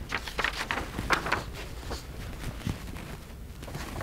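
Footsteps of a person walking, a run of short steps in the first second and a half, then fewer and quieter.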